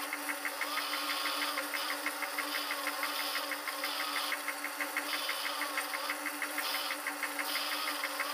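Wood lathe running with a hand tool working the spinning piece, played back at eight times normal speed, so it comes out as a high, fast, even ticking over a steady hum.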